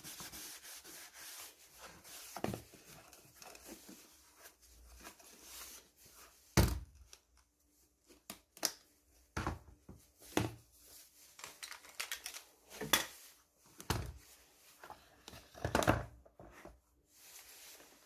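Scattered light knocks, clicks and rubbing: small hard objects being handled and set down, with the loudest knocks about six and a half seconds in and near the end.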